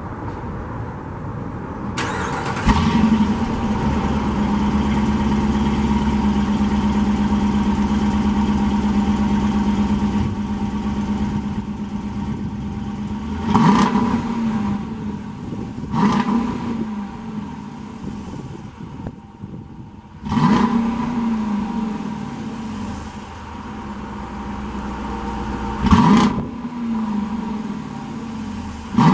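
A 2020 Dodge Durango R/T's 5.7-litre Hemi V8 starts about two seconds in and settles into a fast idle that eases down, then is blipped into several short revs, heard at the exhaust tips. The exhaust is stock, with no active exhaust valves, and isn't really that loud.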